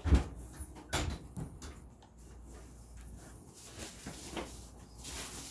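Handling noises from packing a box: two knocks about a second apart, then light rustling with a few faint clicks, and a crinkly hiss near the end.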